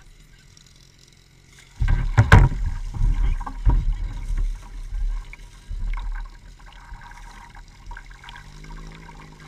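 Water splashing and sloshing in a fire-attack water tank as a suction hose with its metal strainer is plunged in and held under. The loud splashes and knocks start about two seconds in, then settle to lapping water.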